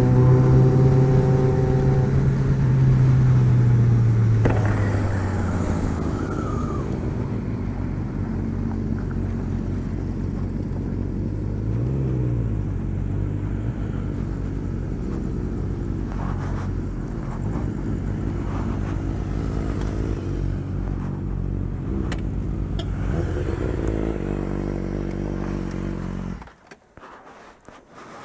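A motor vehicle engine held at a steady raised rev, then dropping to a lower, steady idle about four seconds in. There is a short throttle blip midway, and the sound cuts off abruptly near the end.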